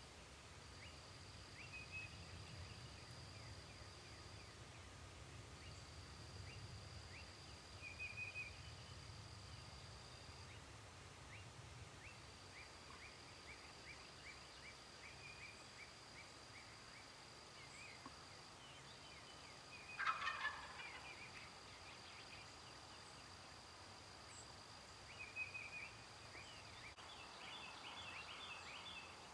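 A wild turkey gobbles once, a loud rattling call about two-thirds of the way through. Short high chirps from smaller birds and a thin, steady high tone that breaks off and resumes several times run underneath.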